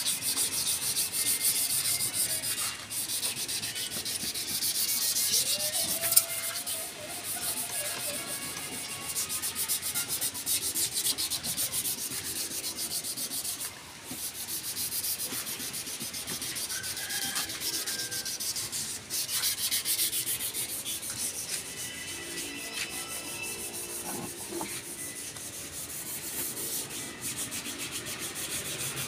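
Hand sanding of a painted motorcycle fuel tank with 240-grit sandpaper: fast back-and-forth rubbing strokes, with brief pauses. The paint is being scuffed and cleaned ahead of a repaint.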